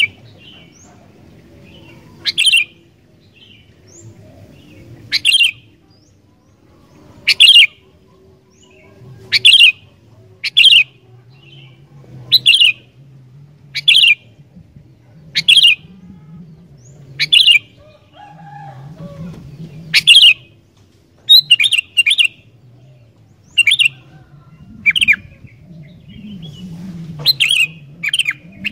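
Sooty-headed bulbul (kutilang) singing in full voice: short, loud, sharp chirping phrases repeated about every one to two seconds, coming in quick pairs and bunches in the later part.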